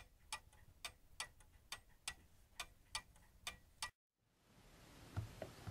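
A steady row of sharp ticks, a little over two a second, that cuts off suddenly near the end.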